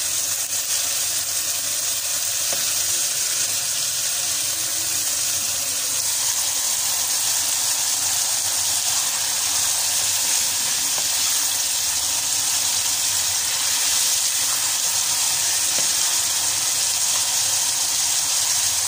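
Sliced bitter gourd frying in hot oil in a non-stick kadai: a steady sizzle as the vegetable's water cooks off in the oil.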